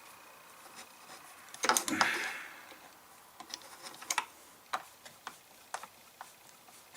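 Light clicks and taps of hand tools and plastic parts being handled while a chainsaw's air filter housing is unscrewed. About two seconds in there is a louder cluster of clatter with a short rustle.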